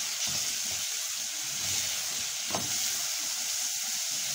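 Soaked chickpeas frying in ghee in an aluminium pot, sizzling steadily, while a silicone spatula stirs them with irregular scraping strokes against the pan.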